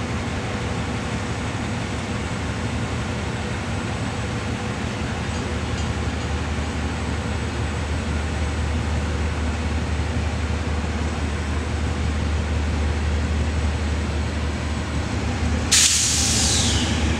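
Diesel locomotive D.4519 running at a steady low hum that slowly grows louder, then a sudden sharp hiss of compressed air, like an air-brake release, about a second and a half before the end, fading over a second.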